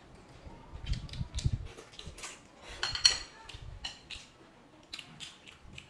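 Chopsticks clicking against ceramic bowls and plates while noodles are being eaten, with a bright ringing clink about three seconds in.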